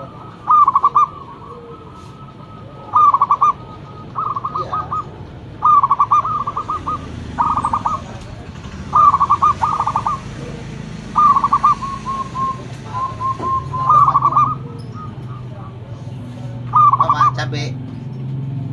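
Zebra dove (perkutut) cooing in its cage: about ten short phrases of quick, stuttering coos, one every second or two.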